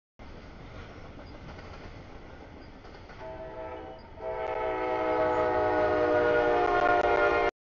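Freight train rumbling past, then a diesel locomotive's horn sounding a steady chord of several tones, coming in about three seconds in and getting louder a second later as the train nears the grade crossing.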